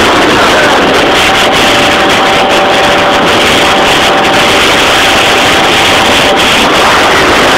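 Yamaha Jog RR two-stroke scooter, tuned with a Hebo Manston cylinder kit, running hard at a steady high engine note under way. The note fades briefly near the end.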